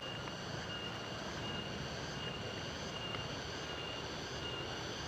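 Steady rushing of a fast-flowing river, with a high insect trill that breaks on and off above it.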